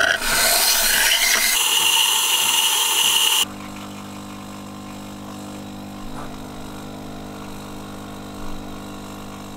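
DeLonghi PrimaDonna Class bean-to-cup machine frothing milk into a glass with a loud steady hiss, which cuts off suddenly about three and a half seconds in. The machine then hums steadily at a lower level while the espresso pours onto the milk.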